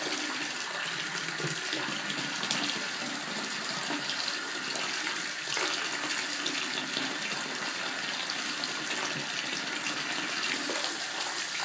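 Water running steadily from a bathtub tap into a partly filled tub, with small splashes as a child's hands and plastic toys move in the water.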